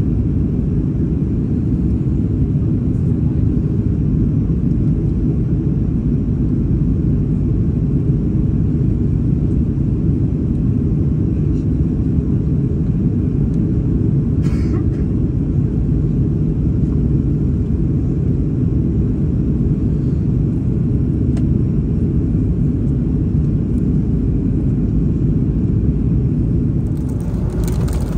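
Steady, loud rumble of cabin noise inside an Airbus A330-300 in flight, the engine and airflow noise heard from a window seat over the wing. A faint click comes about halfway through, and the sound changes slightly near the end.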